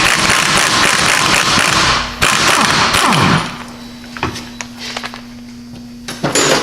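Impact wrench hammering on the top strut nut of a coilover held in a vise, then winding down in pitch as it stops about three seconds in. A steady low hum follows, with another short loud burst near the end.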